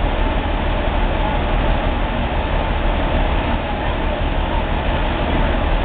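An engine running steadily, a continuous low rumble with a faint steady hum.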